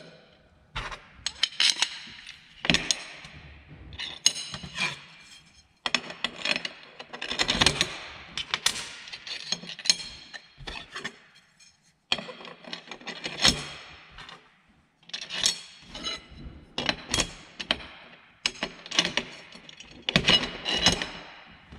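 Curved sheet-metal strips, small tube spacers and bolts being handled and stacked on a metal workbench: irregular clinks, rattles and scrapes of metal on metal, many with a short ring.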